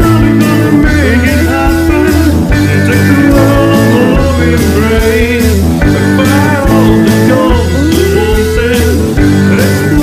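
Rock song playing: electric guitar, bass and drums keeping a steady beat under a sung vocal line.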